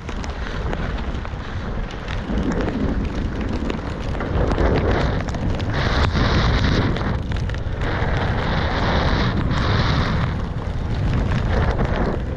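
Wind buffeting the microphone and tyre rumble from a mountain bike riding a wet dirt trail. The rumble grows louder about two seconds in, with stretches of sharper hiss midway.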